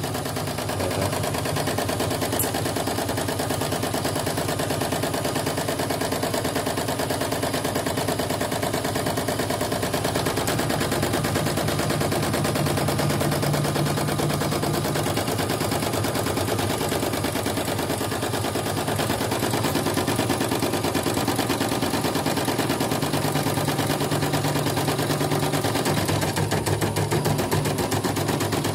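Portable computerized embroidery machine stitching a test design at speed: a steady, very rapid rattle of needle strokes. It runs smoothly without a hitch, a repaired machine that had turned stiffly and then died completely.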